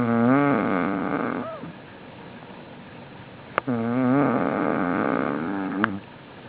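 A man passed out drunk, snoring heavily: two long snores a few seconds apart, each with a wavering pitch, the second starting and ending with a sharp click.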